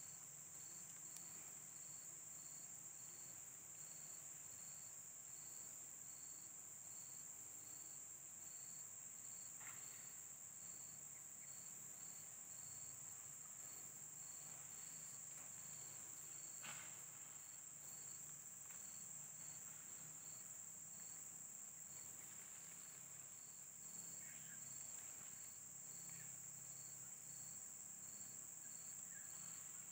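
Insects in the grass: one keeps up a steady high-pitched trill while another chirps in a regular beat, about one and a half chirps a second. A couple of faint brief clicks come through in between.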